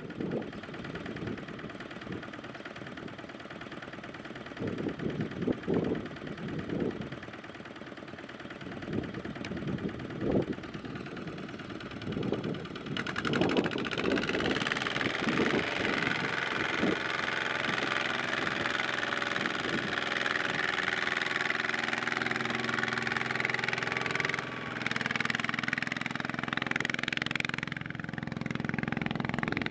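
Kubota ZT140 walking tractor's single-cylinder diesel engine running, knocking unevenly at first, then running louder and steadier at higher revs from about 13 seconds in, as it works to drive the tractor and its loaded trailer out of deep mud.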